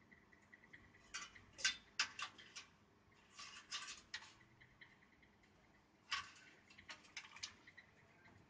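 Light clicks and rattles of plastic power-supply connectors and cables being handled while fitting the 4-pin CPU power connector on a PC motherboard. The clicks come in small clusters, with quiet gaps between.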